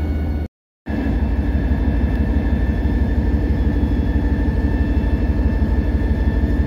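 EMD SD40-2 diesel locomotive's 16-cylinder two-stroke engine running steadily, heard from inside the cab as the unit rolls slowly, with a deep drone and a thin steady whine above it. The sound cuts out for a moment about half a second in.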